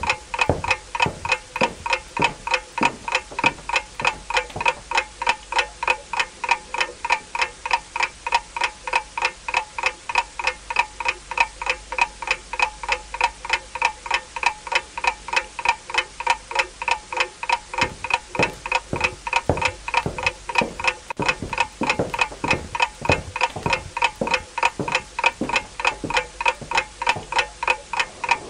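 Clock ticking steadily and evenly, a few sharp, slightly ringing ticks a second.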